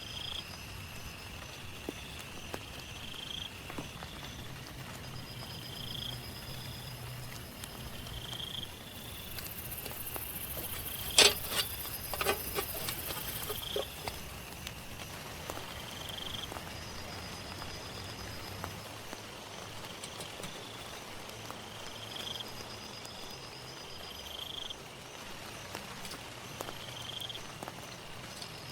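Steady rain falling, with a chirping call repeating every two seconds or so through it. About eleven seconds in comes one sharp click, the loudest sound, followed by a brief run of smaller clicks.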